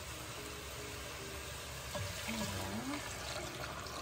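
Reserved meat-boiling broth poured from a pan into a stockpot of beef feet and tripe: a steady pouring splash that gets louder about two seconds in.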